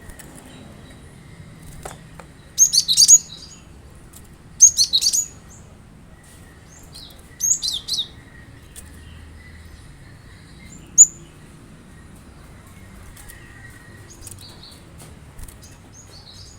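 Cinereous tit (glatik batu) song: three short bursts of rapid, high chirps about two seconds apart, then one sharp single note, with a few faint chirps near the end.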